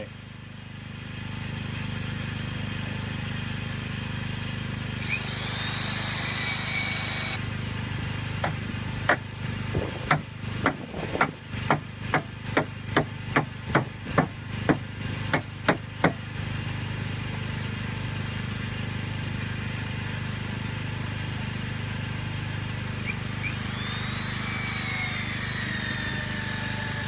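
A run of about sixteen sharp hammer blows, roughly two a second, starting about a third of the way in and stopping about halfway, over a steady low hum.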